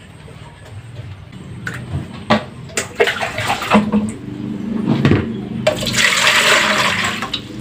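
Water poured from a plastic dipper into an aluminium cooking pot to fill it. A few knocks and splashes come first, as the pot is set down and water is scooped. Then comes a loud, steady pour near the end, lasting nearly two seconds.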